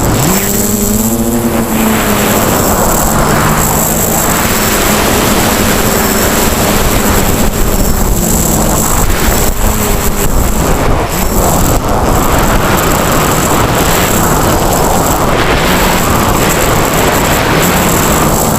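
Quadcopter's electric motors and propellers buzzing in flight, heard from the onboard camera over heavy wind rush, their pitch rising and falling as the throttle changes.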